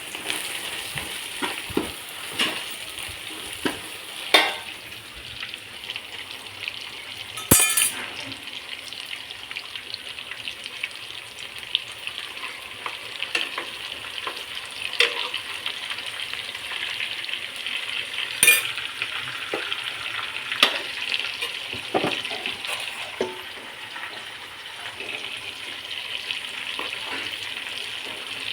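Food sizzling as it fries in a pan and is stirred, with a utensil now and then knocking and scraping against the pan.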